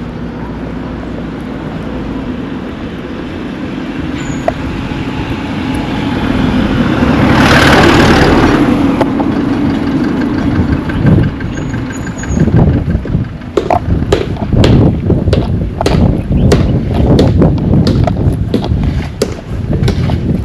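A motor vehicle passing close by: its engine and tyre noise swell to a peak about eight seconds in, then fade. Gusty wind then buffets the microphone in rough, irregular blasts.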